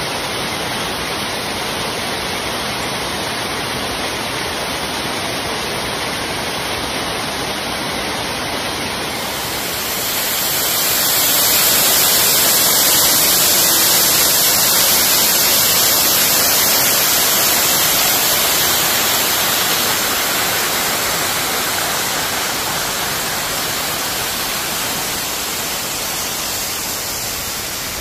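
Silver Waterfall rushing down its rock cascade: a steady roar of falling water. It swells louder and brighter from about ten seconds in, then eases back after another ten seconds or so.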